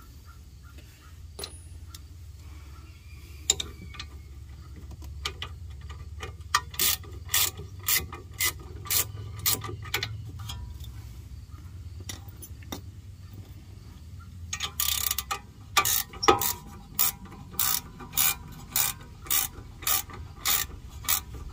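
Ratchet wrench clicking as it backs out loosened bolts on a car's front brake caliper assembly, in runs of sharp clicks about two a second with a pause in the middle, over a faint low hum.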